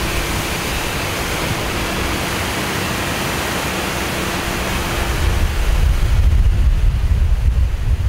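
Fire hose spraying a strong stream of water, a steady rushing hiss. About five seconds in, a louder low rumble of wind on the microphone comes up and the hiss drops back.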